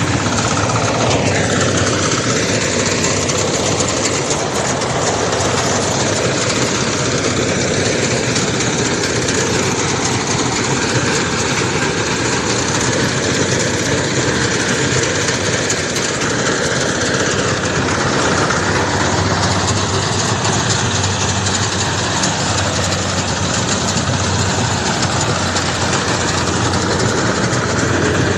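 Rice combine harvester running steadily, a loud, continuous engine and machinery drone.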